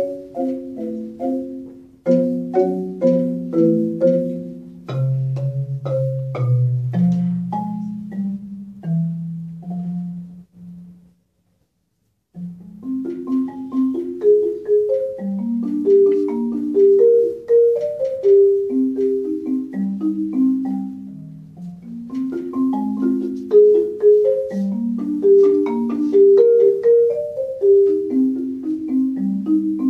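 Marimba played solo with four mallets, chords and broken-chord patterns. It slows into low notes and stops for about a second and a half near the middle, then goes on in flowing patterns that rise and fall.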